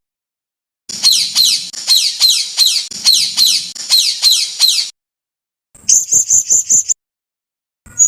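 Recorded songbird calls spliced together as masteran (song-tutoring audio for caged birds): a run of quick, high, falling whistled notes, about four a second, then after an abrupt cut a short burst of rapid high chattering notes, and another brief snippet near the end, each clip separated by dead silence.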